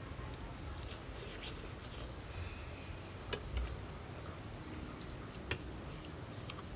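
Metal cutlery clinking against a plate while eating: one sharp clink a little past the middle, a softer one right after, and another clink about two seconds later, over a faint steady background.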